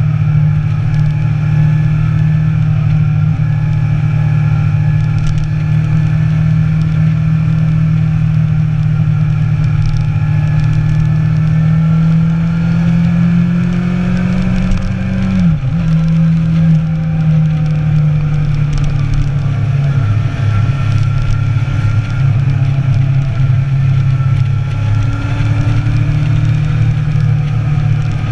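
Inline-four sport motorcycle engine running steadily under way. Its pitch creeps up, dips sharply about fifteen seconds in, then recovers and holds steady again.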